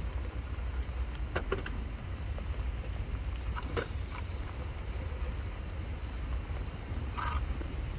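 Scale RC crawler truck clambering over wet wooden planks, with a few short knocks and clicks from its tyres and chassis on the wood over a steady low rumble.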